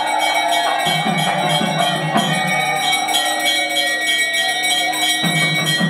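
Temple bells ringing in fast, even strokes, their ringing tones held steady, with music playing underneath.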